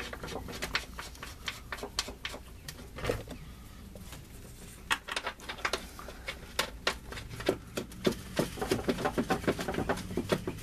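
Ratchet wrench clicking in short quick runs as the engine-mount bolts are driven in, the clicks coming thickest near the end, with birds calling in the background.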